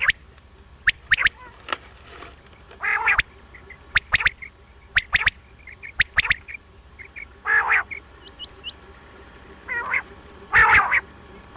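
Quail (batair) calling repeatedly: sharp, clipped notes in twos and threes, broken by longer harsh, rasping calls about three seconds in, about seven and a half seconds in, and near the end.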